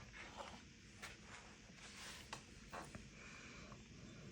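Near silence, with a few faint rustles and light taps from a sketchbook and painting materials being handled.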